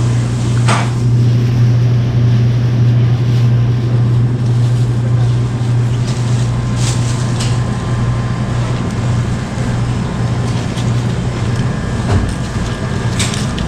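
A steady low mechanical hum runs throughout, with a few short clicks and rustles from tongs and a plastic bag.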